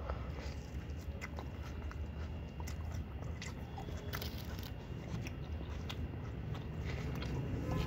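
A person biting and chewing a chicken kebab roll in rumali roti with raw onion, close to the microphone, with scattered small crunching clicks over a steady low hum.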